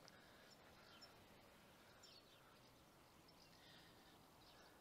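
Near silence with faint, scattered birds chirping in the trees.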